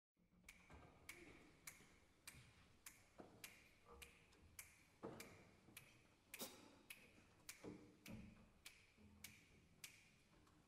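Faint, even ticks, just under two a second, over a light steady ring, like a jazz drummer softly tapping a cymbal to keep time, with a few soft low notes under it.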